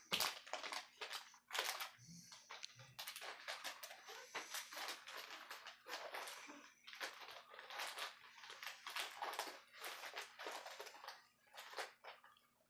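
Irregular rustling and crackling as a blunt is rolled by hand, its wrap and the dry cannabis inside crinkling between the fingers.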